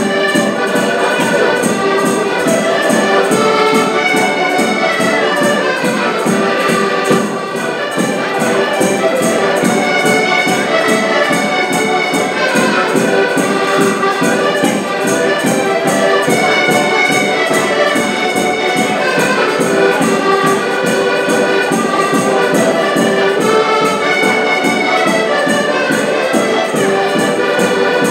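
Portuguese traditional folk music played by a group of accordions in unison and harmony, over a steady beat on a drum.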